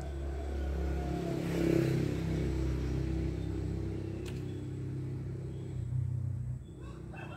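A motor vehicle's engine running out of sight, a steady low hum that swells about two seconds in and drops away near the end. A single sharp click sounds midway.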